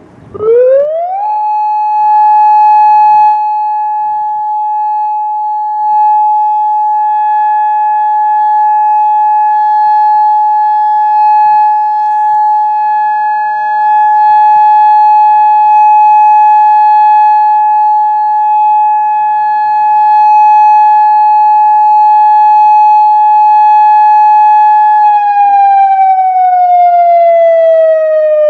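Federal Signal Modulator 3012 warning siren sounding the steady Alert signal for its weekly test: it winds up quickly to one steady tone, holds it, then begins winding down, falling in pitch, a few seconds before the end.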